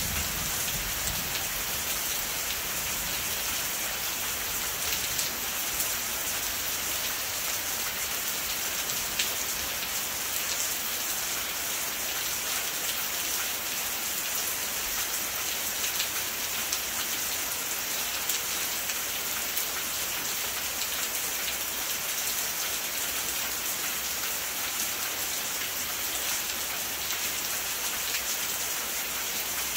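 Steady rain falling: an even hiss with scattered individual drops ticking.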